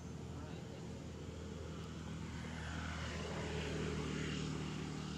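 Low, steady engine drone from a passing motor, growing louder about three seconds in.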